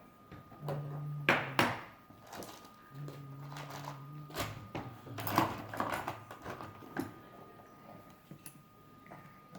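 Small plastic toy parts being handled and fitted by hand: scattered clicks, knocks and clatter. A low steady hum comes in twice, each time for about a second or more.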